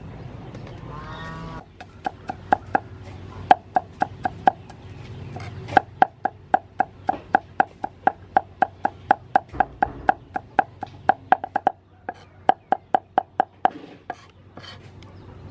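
Cleaver mincing garlic on a wooden chopping block: quick, even knocks about four a second, in several runs broken by short pauses.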